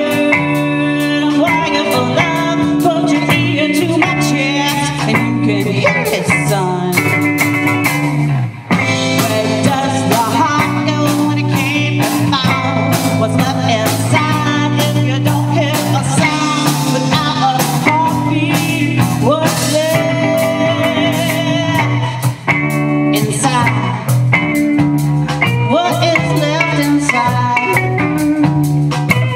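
Live blues-rock band playing: electric guitars and drum kit, with singing.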